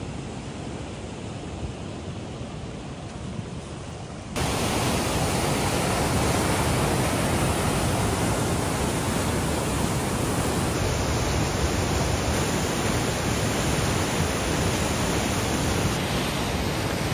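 Fast white-water mountain river rushing loudly and steadily, coming in suddenly about four seconds in; before that only a quieter low rumble.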